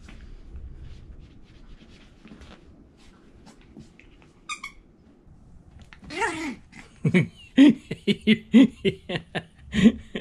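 Yorkshire terrier puppy play-growling and yapping in a quick run of short sounds through the second half, after a few seconds of soft rustling on the pillow. A brief high squeak comes about halfway through.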